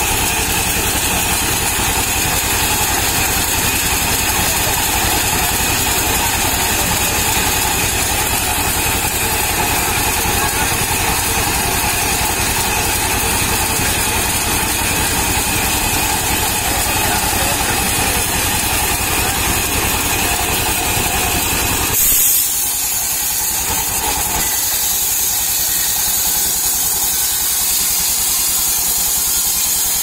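Engine-driven sawmill band saw running steadily while a palm log is fed through the blade, the engine thrumming with an even low pulse. About 22 seconds in there is a brief louder burst, after which the sawing noise eases and the machine runs more lightly.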